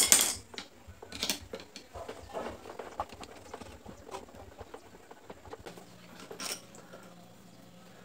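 Screwdriver working the screws on a small electric fan motor's metal housing: scattered sharp metallic clicks and taps, the loudest right at the start.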